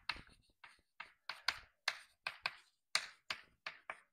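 Chalk writing on a chalkboard: a quick run of short, faint strokes and taps, about three a second, as an equation is written out.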